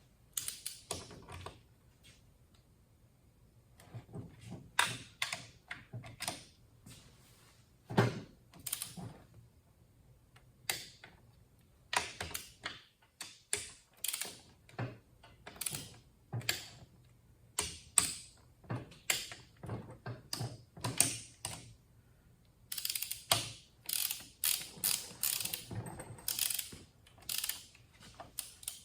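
Socket ratchet clicking in short quick runs, with pauses between, as bolts are run down into an NV4500 transmission case.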